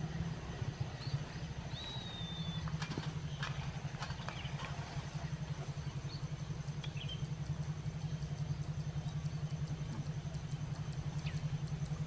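A small engine running steadily with a rapid, even putter, while small birds give a few faint high chirps over it.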